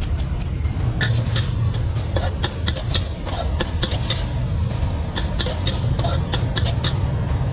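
Metal spatula clanking and scraping against a wok in quick, irregular strokes, over a steady low rumble.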